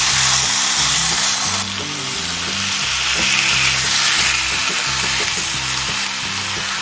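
Marinated pork ribs sizzling steadily in a hot frying pan as more pieces are laid in with tongs.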